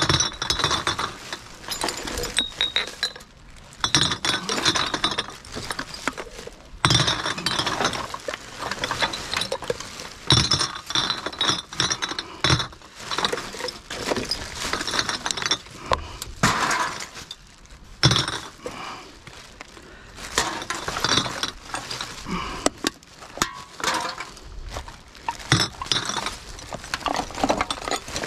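Empty glass beer bottles clinking and knocking against one another as they are dropped one after another onto a bin already heaped with bottles, in irregular runs of sharp, ringing chinks.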